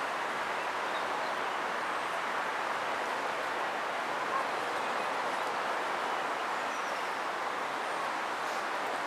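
Steady outdoor rushing ambience in pine woodland, with a few faint, high bird chirps.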